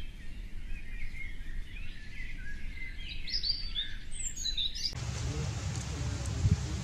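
Birds chirping for about five seconds, then an abrupt cut to a steady low outdoor rumble with one short knock near the end.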